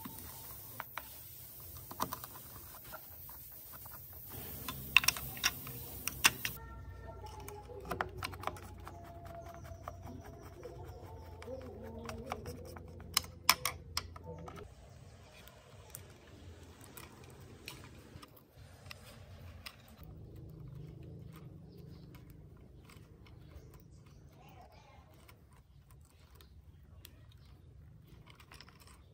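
Irregular small clicks and taps of a screwdriver working screws into a hoverboard's metal frame, with parts and wires being handled. A few sharper metal clicks stand out near the middle.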